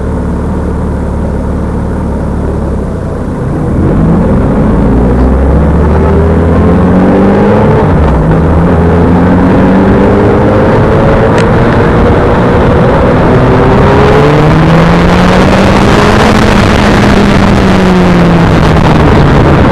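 Motorcycle engine idling, then pulling away about three seconds in and accelerating through the gears, its pitch repeatedly rising and dropping. Wind rush grows louder over the second half, picked up by the rider's sunglasses microphone.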